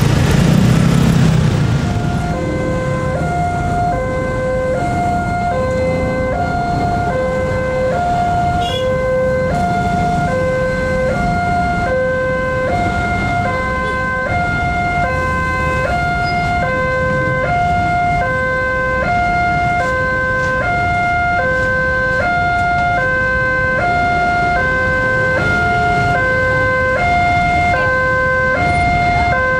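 Railway level-crossing warning alarm sounding an electronic two-tone high-low signal. It starts about two seconds in and alternates evenly, roughly one cycle every second and a half, over motorcycle and car traffic.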